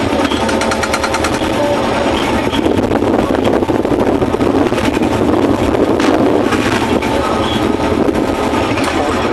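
A sailboat's engine running steadily under way, with wind and water noise over it.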